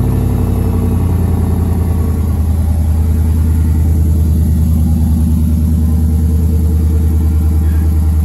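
2010 Chevrolet Silverado's engine idling steadily just after being started, with an even pulsing exhaust note.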